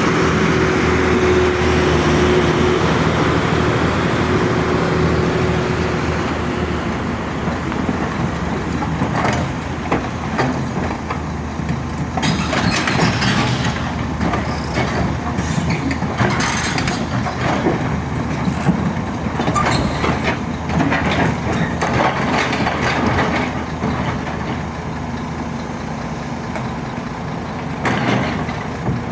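Excavator's diesel engine running steadily, with a thin steady whine for the first several seconds. From about nine seconds in there are repeated clanks and scrapes of metal.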